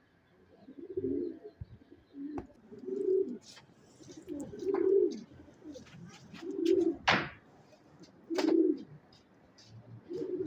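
Pigeons cooing, a low coo about every two seconds, with sharp clicks and taps scattered between the coos.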